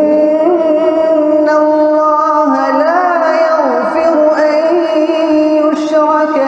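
A man reciting the Quran in melodic tajwid style, holding long unbroken notes that waver, rise and fall in ornamented glides.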